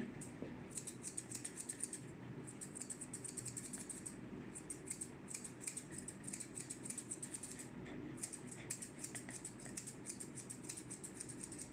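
Grooming scissors snipping through a dog's facial hair: quick, crisp snips in several runs, broken by short pauses.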